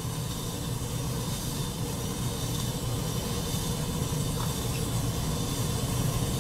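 Steady hissing and fizzing of a piece of sodium reacting with water in a beaker, giving off hydrogen without igniting, over a steady low hum.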